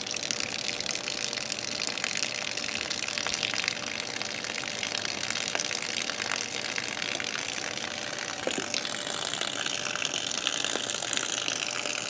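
Steady rush of water running under hose pressure as a boiler is pressured up for a pressure test. The sound changes a little about two thirds of the way through.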